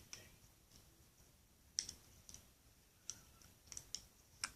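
Faint, scattered plastic clicks and taps from handling a plastic rubber-band loom and its hook, about half a dozen sharp clicks at irregular intervals.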